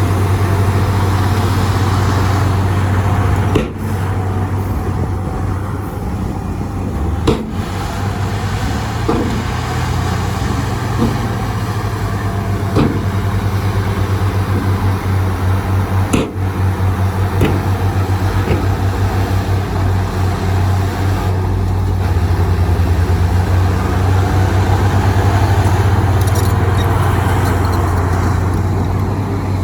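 Heavy diesel earthmoving machinery running steadily, with a few sharp metallic knocks and clanks.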